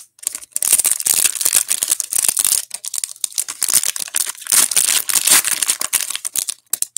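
Foil wrapper of a Panini basketball trading-card pack crinkling and tearing as it is pulled open by hand: a dense crackle of many small crisp snaps, starting about half a second in.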